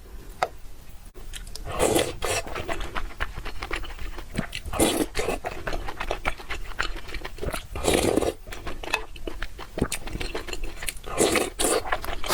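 Close-miked eating: biting and chewing with wet mouth clicks, and a louder bite or slurp about every three seconds.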